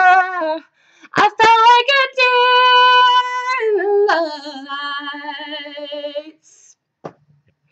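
A woman singing a cappella, with no accompaniment, in long held notes: a high steady note through the middle, then a lower note with a slight waver that ends about six seconds in.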